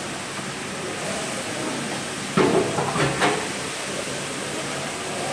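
Steady hiss of an open restaurant kitchen. About halfway through come three sharp clatters, the first the loudest.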